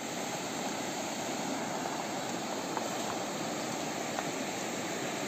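Shallow river running over stones, a steady, even rush of water.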